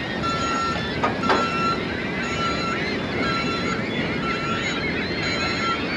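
A reversing alarm beeping about once a second over the steady roar of traffic on the Burlington Skyway bridge overhead, with many birds chattering from the nesting colony.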